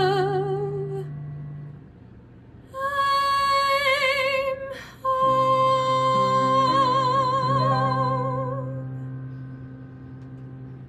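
A girl's solo voice singing the closing phrases of a musical-theatre ballad over an accompaniment. A held note with vibrato gives way to a short break about two seconds in, then two more sung notes, the last one held long with vibrato. The accompaniment's chords ring on under it and fade out near the end.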